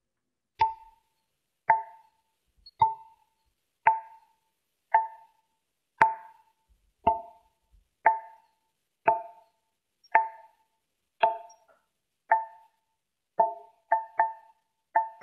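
A single-pitched percussive note struck over and over, like a wood block or tapped stone: about one knock a second, each ringing briefly and dying away, quickening into close pairs near the end.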